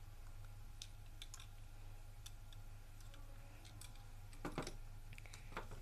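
Faint scattered clicks and taps of a plastic toy being handled, over a steady low hum, with a firmer tap about four and a half seconds in.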